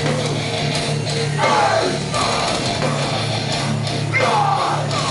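Live hardcore punk band playing loud, with distorted electric guitars. Falling pitch slides come about a second and a half in and again near the end.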